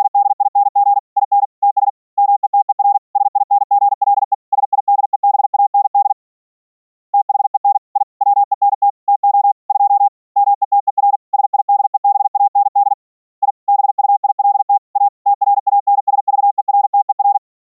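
Morse code (CW) sent as a single steady audio tone, keyed on and off rapidly in short and long elements. There is a pause of about a second six seconds in, and the sending stops just before the end.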